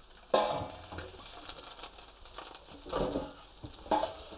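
Metal tongs knocking against a stainless steel roasting pan as lamb shanks are set into it. A sharp clank about a third of a second in rings briefly, and lighter knocks follow near the end.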